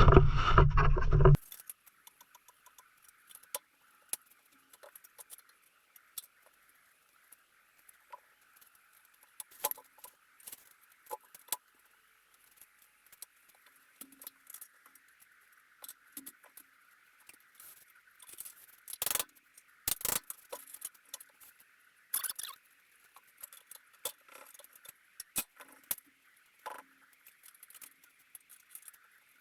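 A loud rushing noise cuts off abruptly about a second in, followed by scattered metallic clicks, ticks and clinks of hand tools and bolts being worked loose, with a few louder clinks around the middle.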